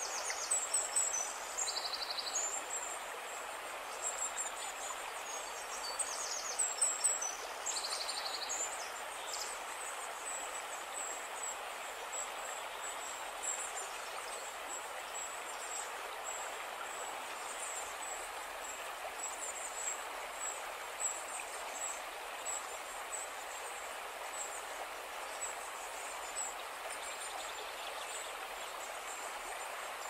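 Steady rush of flowing river water, with birds chirping now and then over it, most often in the first nine seconds or so.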